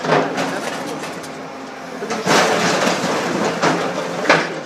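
Scrap metal crunching, scraping and clanking as an Atlas material handler's grab crushes and tears at a tipper truck, over the steady run of the machine. The loudest crunches come about two seconds in and again near the end.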